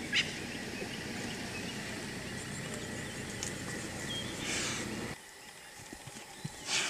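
African wild dogs giving a few short, high-pitched chirps over a steady outdoor background, with brief rustling bursts; the background drops quieter about five seconds in.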